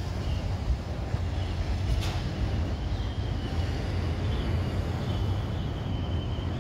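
Airbus A320neo jet engines on final approach, heard from a distance as a steady low rumble with a faint high whine above it.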